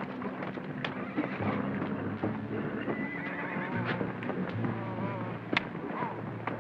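Animal cries: short wavering calls repeating from about four seconds in, over scattered sharp knocks and a low steady hum.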